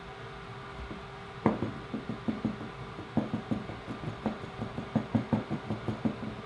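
Squeegee scraping ink across a screen-printing screen: an irregular run of sharp clicks and knocks, a few a second, starting about a second and a half in.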